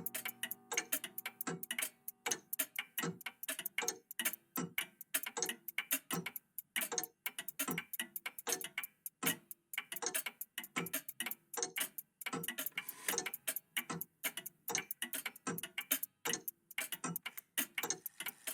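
Several old mechanical clocks ticking at once, their ticks overlapping out of step into a dense, uneven clatter of sharp clicks.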